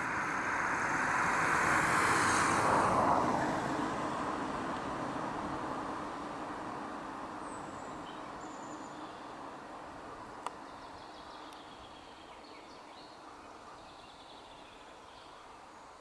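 A passing vehicle: a broad rushing noise that swells over the first few seconds, drops in pitch as it passes, then slowly fades away.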